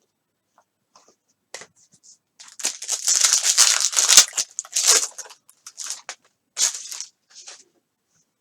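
Trading card pack wrapper being torn open and crinkled by hand. The tearing starts about two and a half seconds in and lasts about three seconds, followed by a few shorter crinkles.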